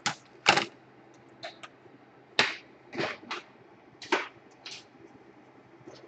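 A run of sharp, irregular plastic clicks and knocks, about ten in all and loudest about half a second and two and a half seconds in, from a laptop's plastic casing parts being handled and set against each other during disassembly.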